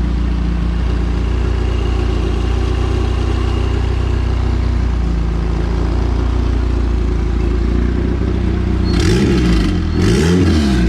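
Turbocharged Honda B20 VTEC engine idling steadily, then revved in two quick blips about a second apart near the end.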